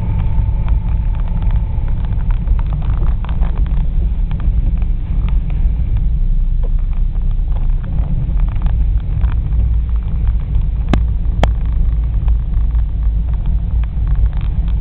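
Car interior noise while driving on a snowy road: a steady low rumble of engine and tyres, with two sharp clicks about eleven seconds in.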